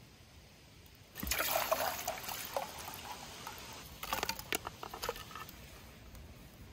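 Wet shrimp tipped from a plate into a stainless steel frying pan: a slithering, pouring sound about a second in, then a few sharp wet clicks and taps a couple of seconds later as they settle in the pan.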